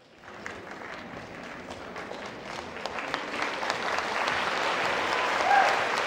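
Audience applauding, starting out of silence and growing steadily louder.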